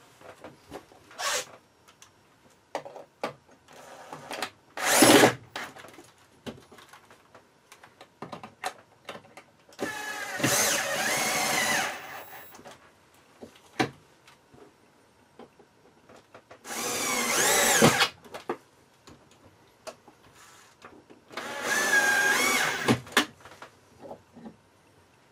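Cordless drill/driver driving screws through an aluminum bar bracket into the RV's wall cabinets: three runs of about two seconds each, the motor's pitch wavering as each screw goes in, plus a short burst about five seconds in. Light clicks and handling noises come between the runs.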